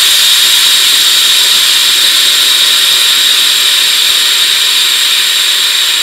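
Compressed air venting from a rear-suspension air bag as its paddle switch is held down to deflate it and lower the vehicle: a loud, steady hiss.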